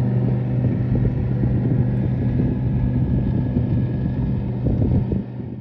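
A speeding motorboat's engine droning steadily across the water, with wind buffeting the microphone; the sound drops away sharply near the end.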